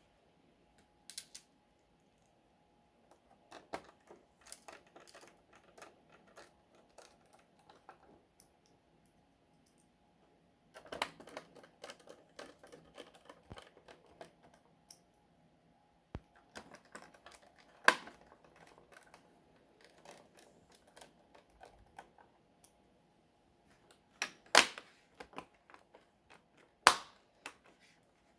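Irregular plastic clicks and taps from a laptop being reassembled by hand, with a few sharper snaps of parts pressed into place.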